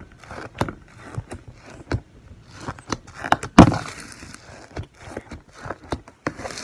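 Glitter slime being squished and worked by hand, giving a string of irregular wet clicks and pops, the loudest about three and a half seconds in.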